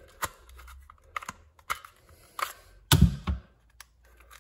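Sharp plastic clicks and knocks from a cordless drill's housing being handled, about eight separate ones, with a heavier thump about three seconds in.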